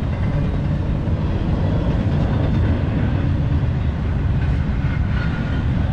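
Steady low rumble of a running vehicle engine, with even loudness and no sharp events.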